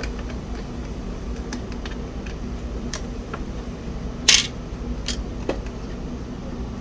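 Small clicks and taps of hands and a tool working a small circuit board loose from a plastic disk-drive case, with one louder scratchy click a little past four seconds in, over a low steady hum.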